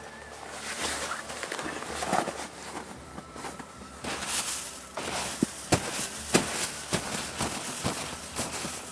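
Footsteps crunching through snow: a person walking briskly on a snowy trail, the steps becoming clearer and regular, about two a second, from about five seconds in.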